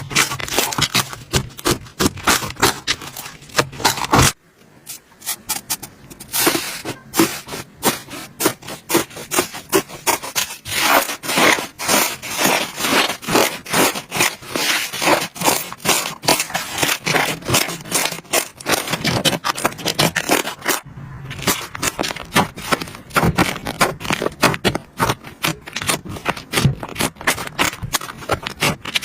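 Slime being squeezed and pressed by hand: a dense, rapid run of crackling clicks and pops. It drops out briefly about four seconds in and again near twenty-one seconds.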